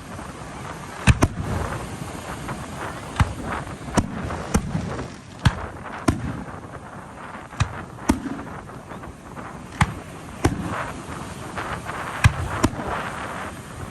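Fireworks going off: about a dozen sharp bangs at irregular intervals, over a continuous crackling haze.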